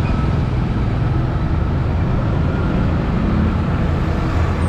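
Motorbike riding along a road: a steady engine hum under continuous road and wind noise.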